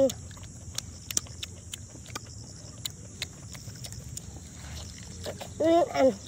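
Mouth sounds of someone eating roasted duck meat: small wet clicks and smacks of chewing. Near the end comes a short, loud, wavering hummed 'mmm' of relish that drops in pitch as it ends.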